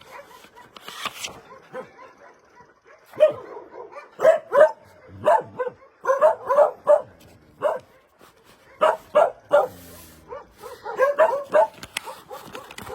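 Dog barking repeatedly in short, sharp barks that come in several quick runs.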